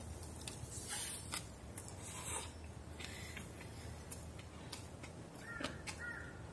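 Close-up eating sounds: chewing a bite of rice wrapped in crisp roasted seaweed, with small sharp clicks of wooden chopsticks against a plastic container. About five and a half seconds in, a bird starts calling, a quick run of short repeated calls.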